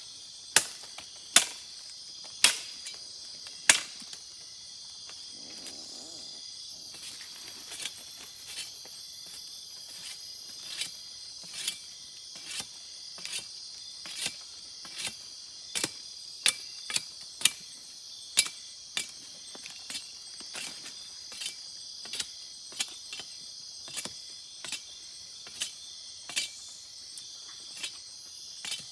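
Machete chopping and trimming a tree branch into a walking stick: four hard strokes in the first four seconds, then a run of lighter chops at about one a second. Under it, a steady chorus of night insects buzzes.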